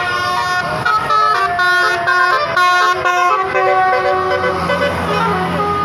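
Bus telolet (basuri) horn playing a tune of short notes that step in pitch, then longer held notes. A low engine hum comes in near the end.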